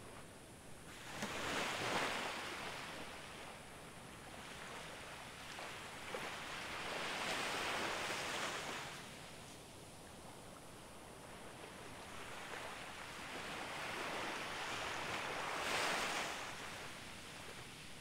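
Small, calm sea waves breaking and washing up a sandy beach, the surf swelling three times, roughly every six to seven seconds.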